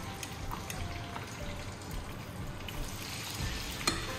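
Hot oil sizzling and bubbling in a small saucepan as food fries, with a sharp clink near the end as metal tongs touch the pan.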